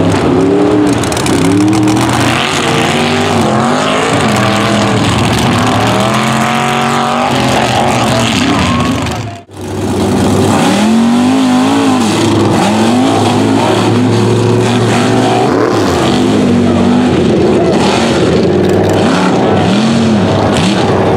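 Mud racing truck engines revving hard through a mud pit, the pitch rising and falling over and over with each stab of the throttle. The sound drops out for a moment about halfway through, then another truck's engine revs the same way.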